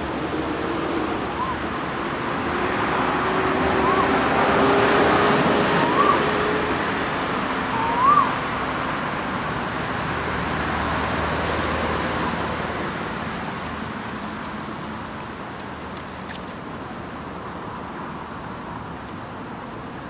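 Road traffic passing, a vehicle's noise swelling and slowly fading away. A bird gives short rising call notes about every two seconds over it, and a thin, high steady whine runs through the middle.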